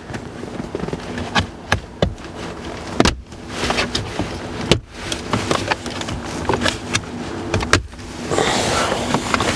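Sharp plastic clicks and knocks as a car's dashboard switch panel is worked loose and pulled out, over a steady low hum, with a rubbing scrape near the end.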